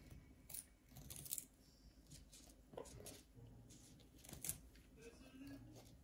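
Parrots biting into raw carrots: a scattering of short, sharp crunches and snaps from their beaks breaking off pieces, faint overall.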